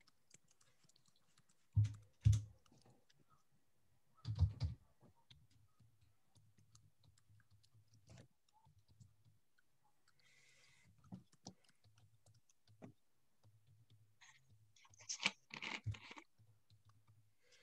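Faint, irregular typing on a computer keyboard with scattered clicks, picked up over an open meeting microphone. A few louder dull thumps come about two seconds in and again about four and a half seconds in.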